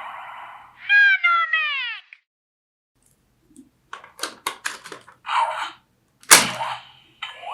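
Electronic sound effects from the Ben 10 Disc Ultimatrix toy watch. About a second in, a pitched cry falls in pitch over about a second. After a pause come a quick run of sharp clicks and a short burst, then a sharp loud crack near the end.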